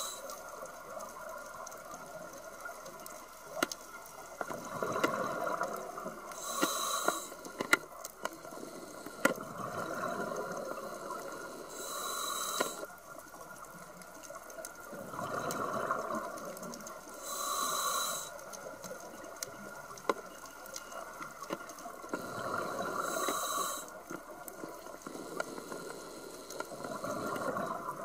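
Scuba diver breathing through a regulator underwater. A short hissing inhalation comes about every five to six seconds, and each is followed by a longer bubbling exhalation. Scattered faint clicks sound in between.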